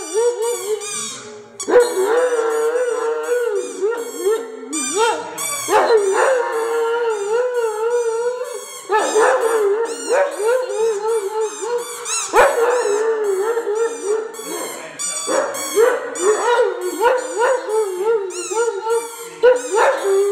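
Great Dane howling: a run of long, wavering howls held around one pitch. A new howl starts every few seconds, each opening with a sharp rising slide.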